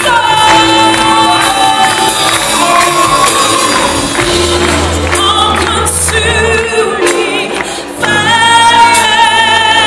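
Live band performance of up-tempo gospel music: a woman sings into a microphone, holding long wavering notes near the start and again near the end, over bass, trombone and saxophone, and hand percussion with a tambourine-like jingle.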